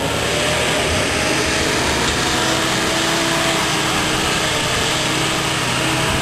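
Old military truck engine running as the truck drives off-road across a field, its pitch drifting slowly up and down under a heavy rushing noise.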